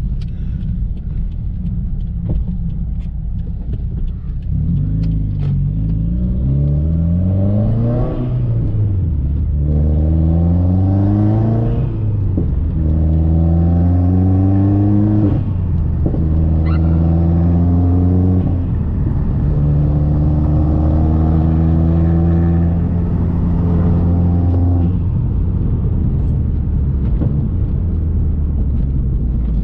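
Turbocharged Subaru WRX flat-four with a Tomei aftermarket exhaust accelerating hard through the gears: the engine note rises, drops at each of four upshifts, then holds a steadier, slowly rising drone in a higher gear before easing off to a low rumble near the end.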